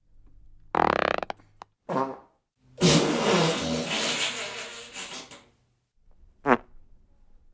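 A series of four fart sound effects: a rippling fart about a second in, a short one just after, then a long loud one lasting about two and a half seconds, and a brief sharp one near the end.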